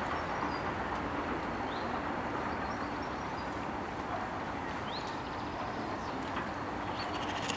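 Outdoor ambience: a steady hiss of background noise with a few short, high bird chirps scattered through it.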